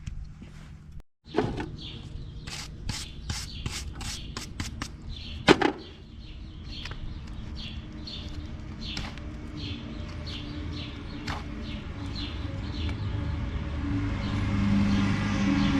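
Farrier's tools working on a horse's hoof: a run of sharp, irregular clicks and taps, with one louder knock near the middle. A steady low hum builds up toward the end.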